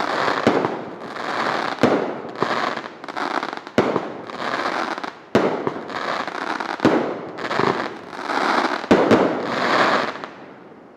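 Liberty Bell brand consumer fireworks going off: a string of sharp bangs about once a second, each followed by a loud crackling hiss, fading out near the end.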